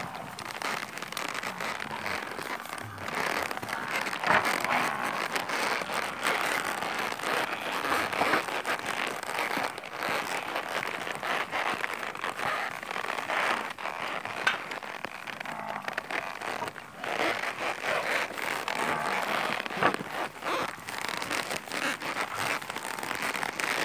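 A herd of weaned Nelore calves moving through a dirt corral: a steady crackling, rustling clatter of many hooves.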